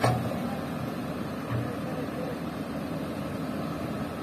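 Diesel engines of a Komatsu PC200 excavator and a loaded Canter dump truck running steadily. A sharp knock comes right at the start and a lighter one about a second and a half in.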